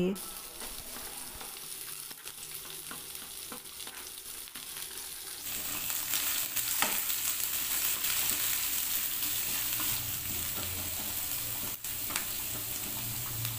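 Chopped onion, garlic and green chillies sizzling in hot mustard oil in a shallow pan, stirred with a metal spatula with a few light scrapes. The sizzle gets louder about five seconds in.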